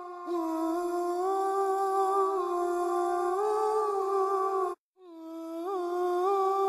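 Background vocal music without instruments: a single voice humming long held notes with small slides in pitch. It cuts out briefly about five seconds in, then resumes.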